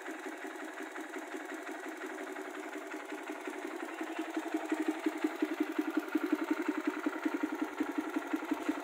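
Kawasaki KLX 150 BF's single-cylinder four-stroke engine idling through an aftermarket Norifumi RV1 exhaust, a steady even chugging that grows louder about halfway through.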